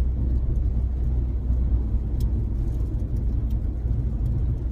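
Steady low road and engine rumble of a car driving on a snowy highway, heard from inside the cabin, with a few faint ticks.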